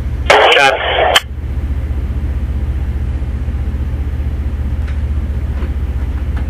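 A short two-way radio reply, then a steady low mechanical drone with a fast, even pulse that carries on unchanged.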